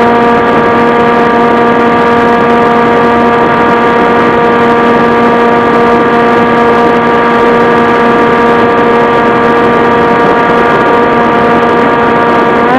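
Model airplane's motor and propeller droning at one steady pitch, with wind rushing over the onboard camera.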